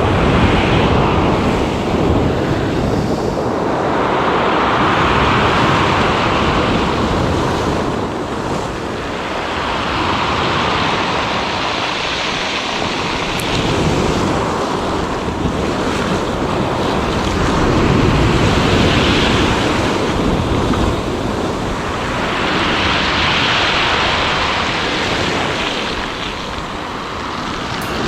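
Sea waves washing onto the shore, surging every four to five seconds, with wind buffeting the microphone.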